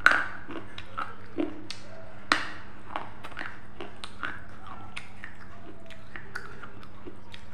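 Someone bites into a crunchy snack close to a clip-on microphone and chews it. There is a loud crunch at the first bite, a second loud crunch about two seconds in, and then irregular smaller crackling crunches as it is chewed.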